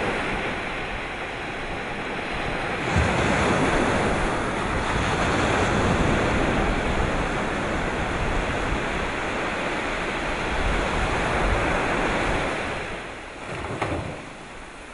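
Sea waves breaking and washing ashore. The surf noise swells about three seconds in, holds, and dies away near the end.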